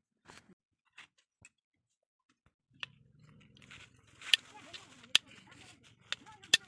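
Sharp metal clicks and snaps from a homemade folding single-shot gun's action being worked by hand: a few light clicks in the first second and a half, then several loud snaps in the second half over a low steady hum.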